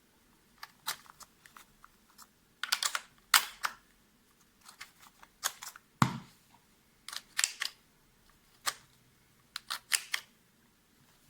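A series of irregular clicks and knocks, about a dozen, with a heavier knock about six seconds in: handling noise as the cordless drill is set up, just before it is run.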